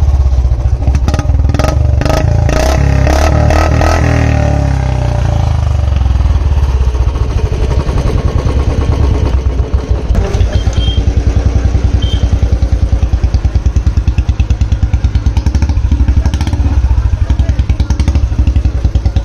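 Royal Enfield Bullet 350's single-cylinder engine through a free-flowing Long Punjab silencer, blipped through several quick revs in the first few seconds, then settling into a steady thumping idle at a slightly raised rpm.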